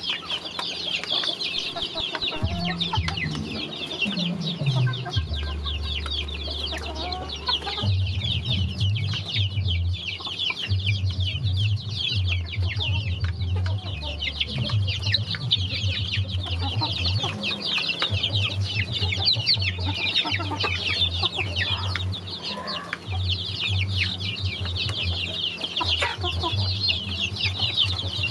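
A flock of young chickens peeping and chirping continuously while feeding, a dense chorus of short high calls. A low rumble comes and goes underneath.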